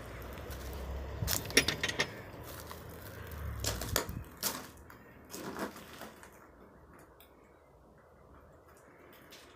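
Footsteps crunching on gravel with scattered clicks and knocks, over a low rumble for the first four seconds; the sounds thin out and it goes quiet in the second half.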